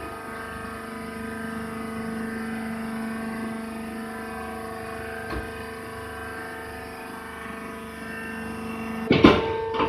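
HBA-B120 wood shaving baler's hydraulic press running with a steady machine hum. A single knock comes about five seconds in, and a loud clattering burst near the end.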